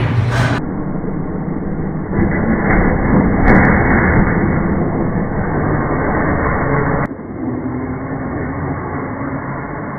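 Traxxas UDR radio-controlled trophy truck being driven, a steady noisy run of motor, drivetrain and tyre sound with a short rise and fall in pitch about three and a half seconds in. The sound shifts abruptly a little after two seconds and again about seven seconds in.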